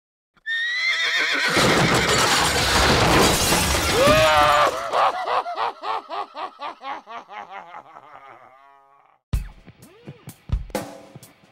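An echoing intro sound effect: a loud pitched cry over a noisy crash, its echoes repeating about four times a second and fading away over several seconds. About nine seconds in, the song starts with sparse, heavy drum hits.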